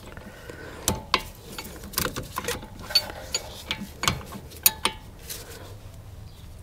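Hand ratchet clicking in short, irregular runs as the rear brake caliper bolts are run in, with light clinks of a wrench on the metal.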